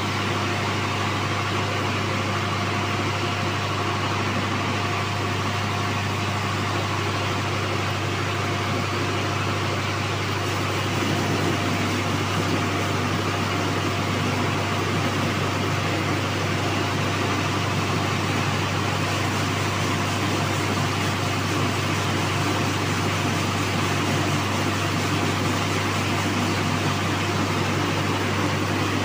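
Rice milling machinery, a polisher with its belt drives and blower fans, running with a steady droning hum. About ten seconds in it becomes slightly louder and rougher.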